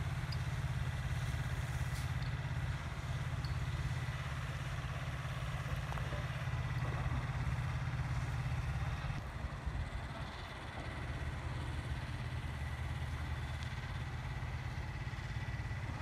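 Engine running steadily with a low rumble and a faint steady high whine; it eases a little about nine seconds in.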